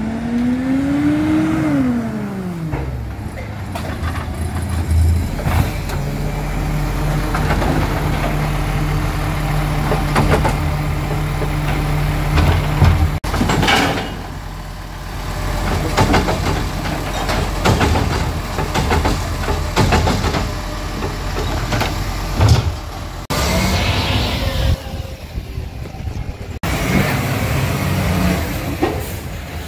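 Side-loader garbage truck at work. Its diesel engine rises in pitch and falls back as it pulls up to a bin, then holds a steady higher speed while the automated lifting arm grabs, lifts and empties the wheelie bin, with repeated knocks and clatter of the bin and arm.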